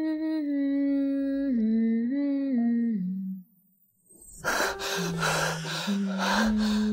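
A woman humming a slow, gentle lullaby-like tune without words, in long held notes that step downward, breaking off about three and a half seconds in. After a short pause the tune comes back lower, under a loud rushing hiss.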